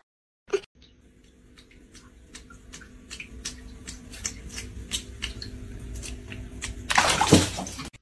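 Light splashes and taps of water as a cat paws at water in a plastic bucket, over a steady low hum. A louder, sudden burst comes near the end.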